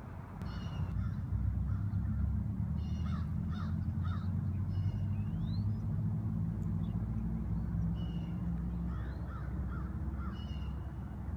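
Birds calling in short repeated bursts over a steady low rumble that comes up about half a second in.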